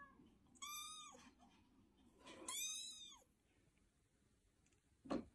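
Faint, high-pitched kitten mews: two clear ones in the first three seconds, after a fainter one at the start. A single short soft knock follows near the end.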